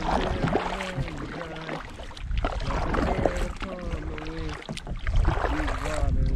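Kayak paddle strokes dipping and splashing in shallow water, with low wind rumble on the microphone and a few wavering pitched tones in the background.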